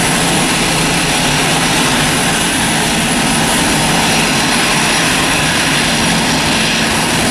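Steady jet engine noise from a Boeing 767-300F freighter climbing out after takeoff.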